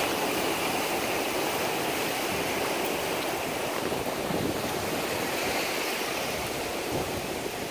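Ocean surf washing up on a sandy beach: a steady rush of waves with no distinct breaks.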